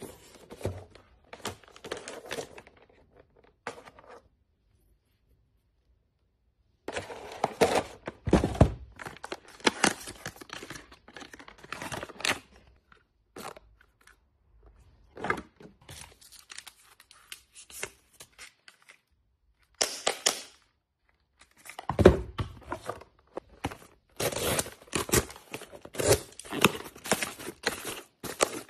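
Packaging handled close up: clicks, taps and knocks of a cardboard gift box and the items inside it, in short bursts separated by silent gaps. Near the end, dense rustling and crinkling as a cardboard box with bubble wrap is opened.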